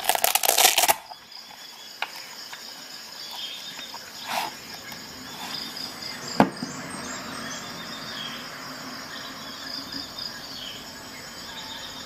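Hook-and-loop (Velcro) closure of a leather knife pouch pulled open: a loud crackling tear lasting about a second. Then quieter handling of the knife, with a soft knock and a sharp click past the middle.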